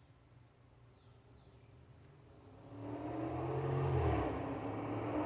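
A motor vehicle driving by, its engine sound swelling from about halfway through and staying loud to the end, over faint, short high chirps repeating every second or so.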